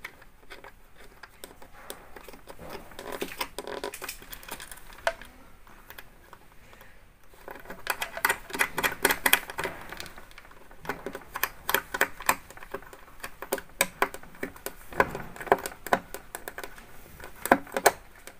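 Irregular clicking and rattling of hands twisting the plastic binding-post knobs on a speaker's terminal plate and handling the speaker wire while the wire is tightened in place. The clicks are sparse at first and come thick and fast from about halfway through.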